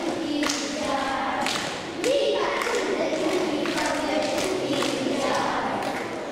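A choir of young children singing together, with a few scattered thumps.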